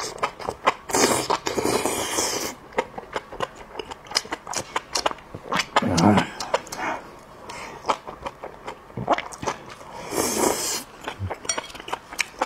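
Close-miked eating of spicy skewered enoki mushrooms: wet chewing with many sharp mouth clicks, and two longer slurps, one about a second in and one about ten seconds in.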